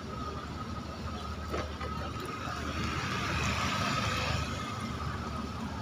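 Road traffic with engines running, and a motorbike passing close by, loudest about three to four seconds in.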